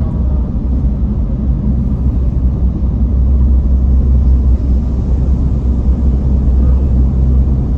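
Steady low road and engine rumble of a car driving through a road tunnel, heard from inside the car. A bus overtakes alongside about halfway through, and the rumble swells a little as it passes.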